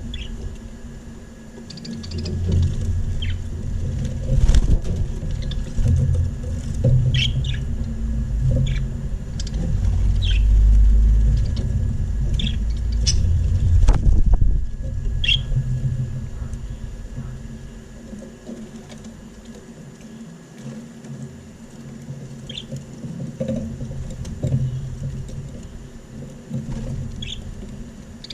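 Budgerigars in an aviary giving short, scattered high chirps, over a low rumble that is loudest through the first half and fades about two-thirds of the way through. One sharp knock about halfway.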